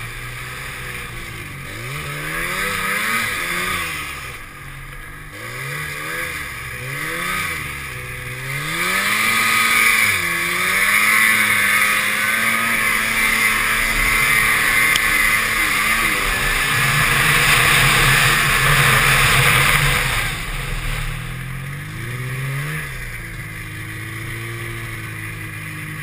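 Snowmobile engine revving up and down with the throttle, its pitch rising and falling every second or two. From about nine to twenty seconds in, a loud rushing hiss rides over it while the sled runs fast. Near the end it settles to a lower, steadier run.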